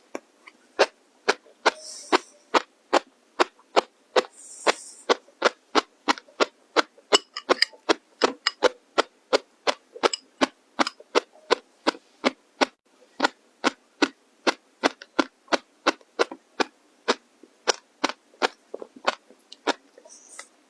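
Crunchy food being chewed close to the microphone, with sharp, regular crunches about two to three a second.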